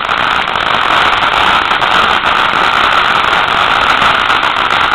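Fire Gem ground fountain firework spraying sparks with a loud, steady hiss.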